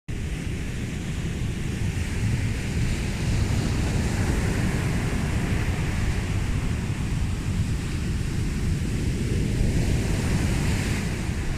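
Baler running steadily: a continuous low rumble with no distinct strokes, mixed with wind noise on the microphone.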